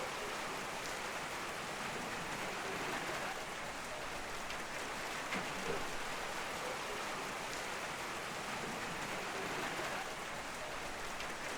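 Steady rain falling: an even hiss with a few louder individual drops ticking through it now and then.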